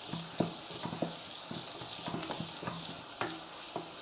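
Small onions and ginger-garlic paste sizzling in hot sesame oil in a pan, stirred with a spatula that scrapes and knocks against the pan several times a second. They are being sautéed until the raw smell of the ginger-garlic paste cooks off.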